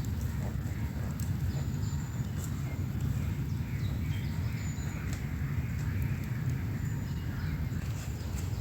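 Outdoor ambience: a steady low rumble with faint bird chirps and a few light clicks.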